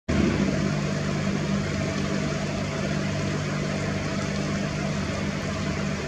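Steady rushing of a shallow stream's water, with a steady low hum underneath.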